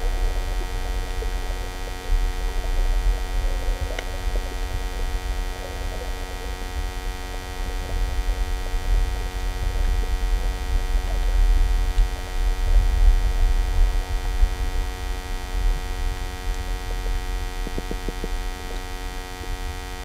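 Underwater sound picked up by a camera in a waterproof housing: a low, muffled rumble of water moving over the housing that swells and fades, with faint steady tones from the camera itself and a few faint clicks.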